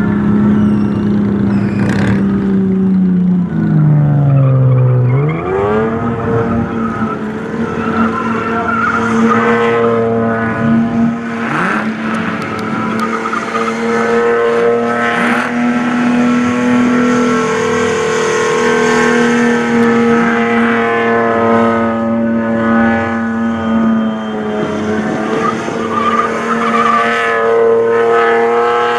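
Ford Falcon burnout car's engine held at steady high revs while its rear tyres spin and squeal. The revs drop about four seconds in, then climb quickly back up and hold again.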